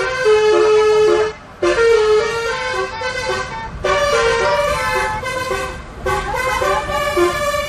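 Indonesian bus "telolet" multi-tone horn playing a quick tune of stepped notes, with a short break about a second and a half in.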